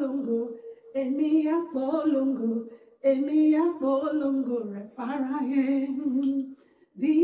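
A woman singing a worship song into a handheld microphone, in several phrases with brief breaks between them.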